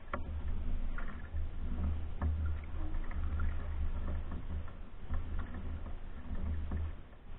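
Canoe being paddled: a deep rumble that swells and fades about once a second with the strokes, with a few light ticks of the paddle and water against the hull.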